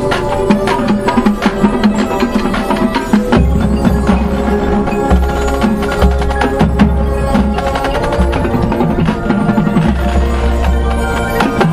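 High school marching band playing: sustained wind and brass chords over busy percussion with many sharp strikes and recurring low bass drum swells.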